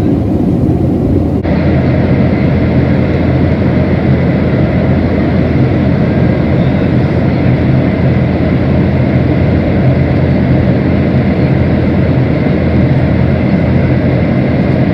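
Steady roar of a Boeing 737-800's cabin in climb: CFM56-7B jet engines and airflow heard from a seat behind the wing, with a low hum beneath. About a second and a half in the tone shifts slightly: the highest hiss drops away and a faint steady whine comes in.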